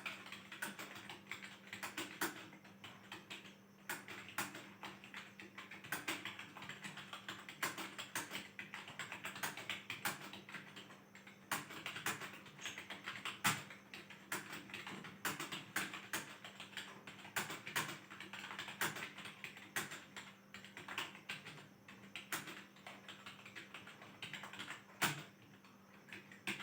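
Computer keyboard being typed on continuously during a timed typing test: a rapid, uneven run of key clicks, over a faint steady hum.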